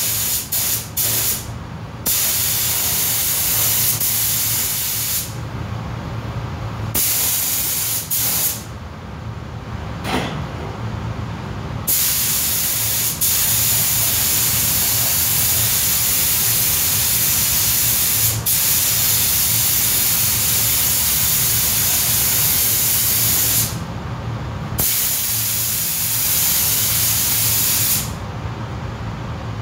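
Air spray gun hissing in bursts as its trigger is pulled and released while a coat is sprayed on. A few short pulls come first, then longer passes, the longest lasting about twelve seconds, over a steady low hum.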